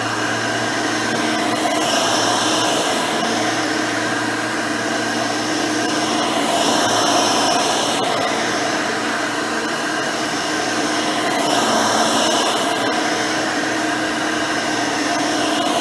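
Hoover Elite 600 upright vacuum, fitted with a 7-amp, 20-blade-fan motor, running steadily while cleaning. A higher hiss swells and fades about every four to five seconds over the steady motor whine.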